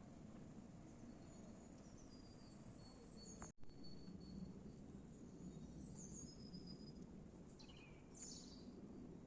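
Faint forest ambience: scattered high, thin bird chirps and short calls over a low steady background rumble, with a brief break in the sound about three and a half seconds in.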